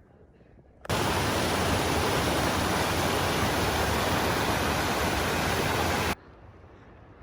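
Waterfall rushing close by: a loud, steady, even hiss that starts suddenly about a second in and cuts off suddenly about a second before the end.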